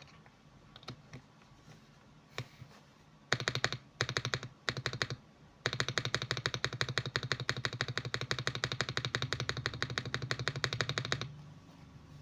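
Mechanical keyboard with lubed Akko switches, a GMK67 board, being typed on. A few scattered keystrokes come first, then short rapid bursts of keys from about three seconds in, then fast continuous typing that stops about a second before the end.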